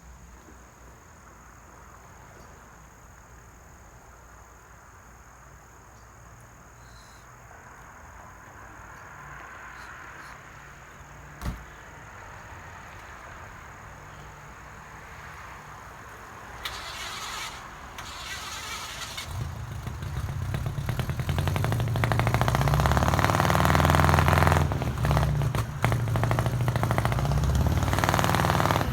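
Faint insect chirping, then about two-thirds of the way in a car engine starts up and runs, getting loud, its pitch rising and falling as it is revved.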